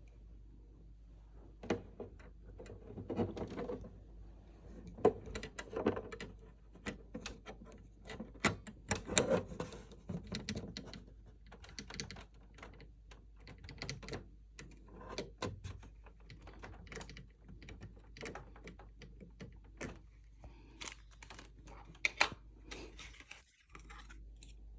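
Irregular clicks, taps and knocks of hard plastic parts being handled, with some rustling, as the sensor of a Xiaomi Mi Air Pro air purifier is worked on.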